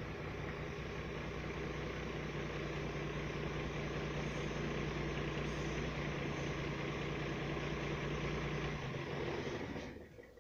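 An engine idling with a steady low hum, cutting off suddenly near the end.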